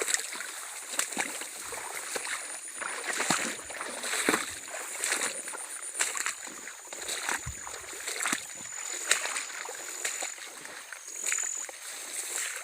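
Shallow rice-paddy water splashing and sloshing in irregular strokes about a second apart.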